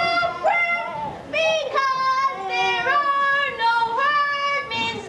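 A young solo voice singing a melody, holding notes and stepping between pitches, with short breaks between phrases.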